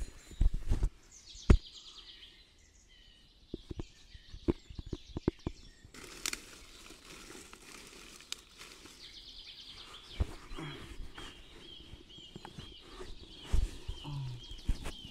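Birds calling: a fast high trill now and then, and from about two-thirds of the way in, a run of short repeated chirps about two a second. Scattered sharp knocks and rustling of something being handled come in between.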